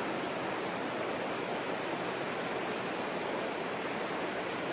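Steady rush of flowing water, an even hiss with no breaks.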